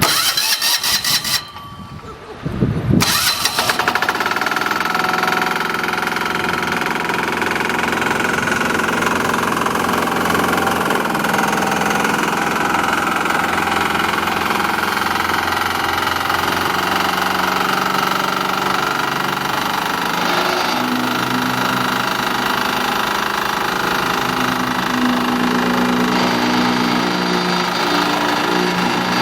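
Small engine of a walk-behind double drum vibratory road roller being started, catching about three seconds in, then running steadily. Its note changes about twenty seconds in, when a steady lower hum joins.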